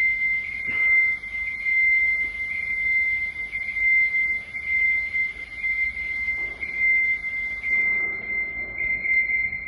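A steady, high-pitched single tone like an electronic alarm sounder, holding at one pitch without a break.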